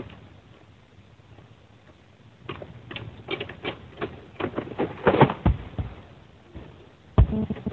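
Oil palm harvesting sickle (egrek) on a long pole cutting into the frond stalks high in the palm: a quick run of sharp cracks and rustling, thickest about five seconds in. A single heavy thud comes about seven seconds in.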